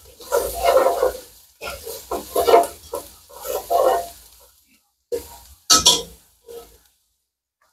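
Spatula stirring and scraping chopped onions and green onions frying in bacon grease in a nonstick pot, in three strokes about a second each, followed by two short knocks as the spatula is lifted away.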